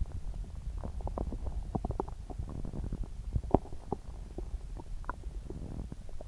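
Upset stomach growling and gurgling: a low rumble with a quick run of short bubbling pops, the loudest about halfway through.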